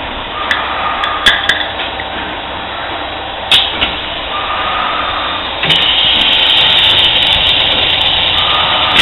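Roller forming machine running: a steady mechanical noise with a few sharp clicks and knocks in the first four seconds, turning louder and harsher a little past halfway.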